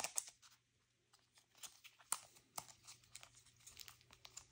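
Plastic card sleeves and trading cards being handled: faint crinkling and light clicks as sleeved cards are shuffled and set down, with a short pause about a second in.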